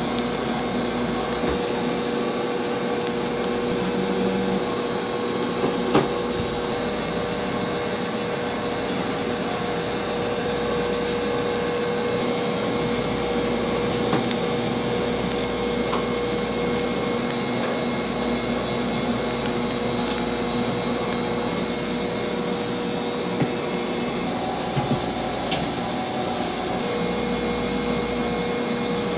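Steady whirring hum of a motor-driven machine, with a few light clicks and knocks over it.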